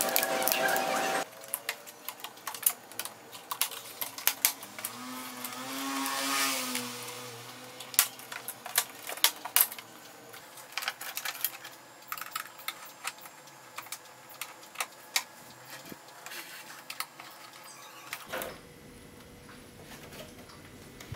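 Scattered sharp clicks and snaps of plastic casing and hand tools as an HP LP2475w LCD monitor's stand cover, bezel and back cover are pried and lifted off. A brief pitched call rises and falls a little after five seconds in.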